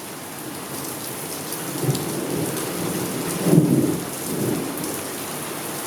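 Rain falling steadily, with thunder rumbling in low swells from about a second and a half in, loudest near the middle.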